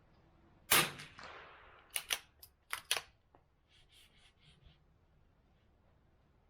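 A single .22 LR rifle shot from an Anschutz Model 64MPR bolt-action rifle, with a short decaying echo. About a second later comes a quick run of sharp metallic clicks and a few softer ones as the bolt is worked to eject the case and chamber the next round.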